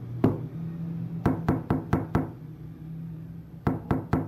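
Knocking on a door: two rounds of about five quick raps, a second or so apart, with a low steady hum underneath that stops about three seconds in.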